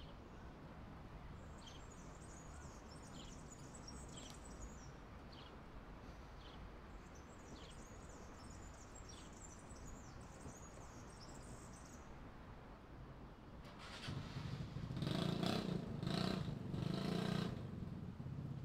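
Urban street ambience: a steady low rumble of distant traffic with small birds chirping in two short spells. A motor vehicle passes close by, clearly louder, in the last few seconds.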